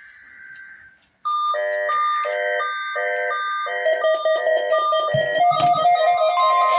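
Midland 74-105XL weather radio sounding its alert for the weekly test. Faint data tones fade out in the first second. Then, about a second in, the radio's loud electronic alarm starts: a high beep and a lower chord-like tone alternating, each about a third of a second. A steady tone joins near the end.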